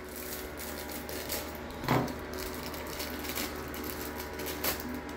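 Thin plastic packaging bag crinkling as it is cut open with scissors and pulled off a small toy. There are two sharper clicks, about two seconds in and near the end.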